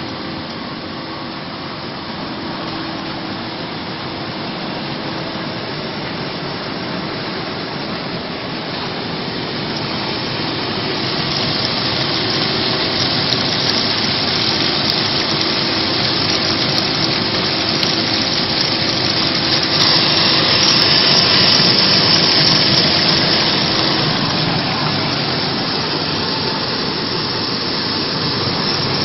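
Vegetable washing machine running: a steady motor hum under a continuous rush and splash of water, growing louder about ten seconds in and loudest a little past twenty seconds.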